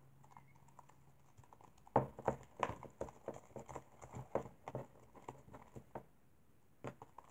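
Sticky homemade glue slime clicking and squelching as a hand kneads and pulls it in a plastic cup, with the slime just starting to form. A run of quick, irregular clicks starts about two seconds in, the first the loudest, and one more comes near the end.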